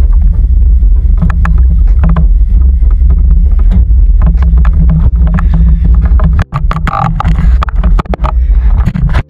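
Boat engine running steadily, a loud low rumble mixed with wind buffeting the microphone. Scattered sharp clicks and knocks run through it, and the rumble drops out for a moment about six and a half seconds in.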